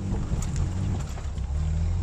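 Lada Niva's engine running under load as the 4x4 drives through mud off-road, with a couple of sharp knocks.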